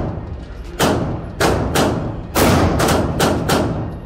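Semi-automatic pistol fired in a quick string of about eight shots, some in close pairs, each ringing out in the echo of an indoor range.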